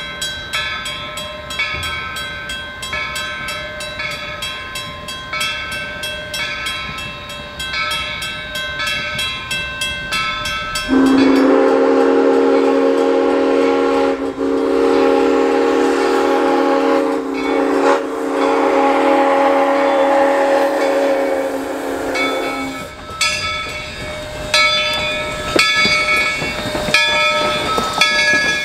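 A 1923 ALCO-built steam locomotive ringing its bell in a steady rhythm, then sounding one long whistle blast of about twelve seconds, starting about eleven seconds in and dipping briefly twice, after which the bell rings on.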